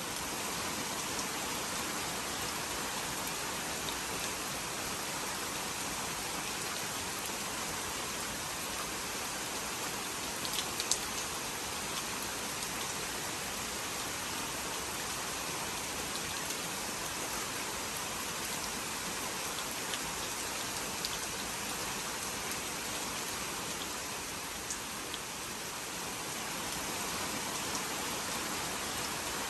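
Steady rainfall, with the patter of individual drops falling on surfaces and a few sharper drop ticks now and then.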